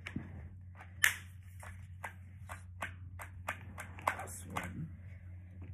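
Hard plastic toy track pieces clicking and knocking together as they are handled, a run of sharp taps about two or three a second, the loudest about a second in, over a low steady hum.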